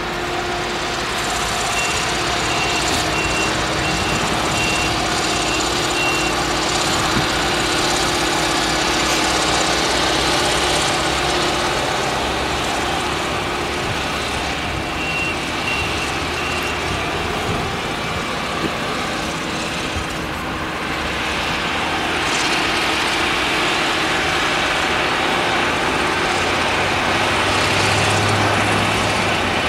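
Claas Jaguar 970 forage harvester with its MAN V8 engine running steadily under load while chopping maize, mixed with tractor engine noise. A short high beep repeats in two runs of a few seconds each.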